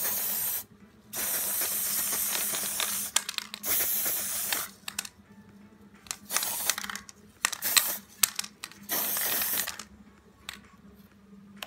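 Aerosol spray-paint can hissing in bursts: long sprays in the first half, then shorter spurts. Short clicks and rattles come in between.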